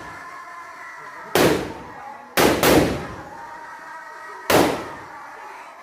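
Four sharp firecracker bangs, each trailing off in a short echo, the second and third close together about two and a half seconds in, over faint background music.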